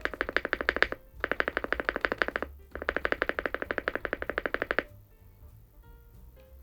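Fast typing on a Weikav Stars80, an aluminium-bodied, gasket-mounted TKL mechanical keyboard: three rapid runs of keystrokes that stop about five seconds in.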